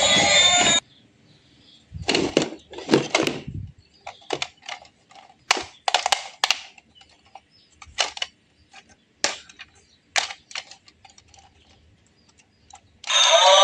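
A series of irregular sharp clicks and light knocks, most bunched between two and four seconds in. Background music cuts off about a second in, and a bleating sound begins near the end.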